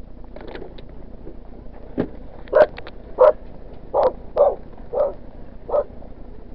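A dog barking, about six short barks spaced a half second to a second apart from about two and a half seconds in, after a single knock about two seconds in.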